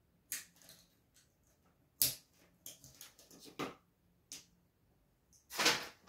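Clicks and rustles of wires and spade connectors being handled and pushed onto the terminal block of a washing machine motor: a few sharp clicks, a quick run of small clicks and scrapes in the middle, and a louder, longer rustle near the end.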